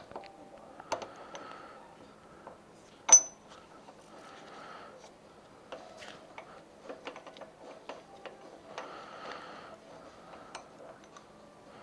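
Metal bike parts and hand tools clinking and clicking as wheelie pegs are fitted to an e-bike's rear axle bracket, with one sharp ringing metal clink about three seconds in and short stretches of scraping between.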